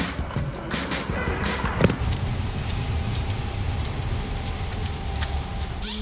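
Car driving: a steady low road rumble from inside the car, after a couple of seconds of sharp knocks and clicks.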